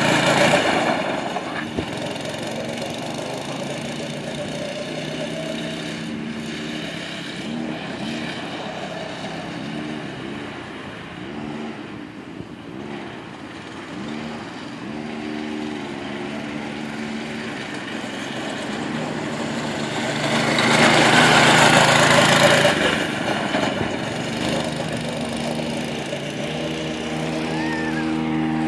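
Small go-kart engine running as the kart drives around, its pitch rising and falling with the throttle. It grows loud as the kart passes close about twenty-one seconds in, and near the end an engine holds a steady note.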